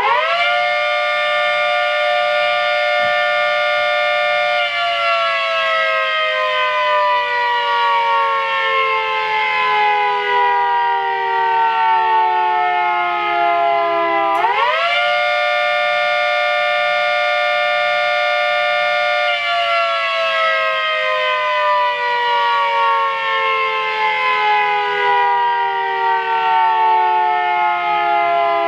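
One-third-scale model of a 3T22 three-tone siren sounding its attack signal, a chord of several tones. It winds up to full pitch right at the start and holds steady about five seconds, then coasts down in pitch for about ten seconds. It winds up again about halfway through for a second cycle, holds, and coasts down once more.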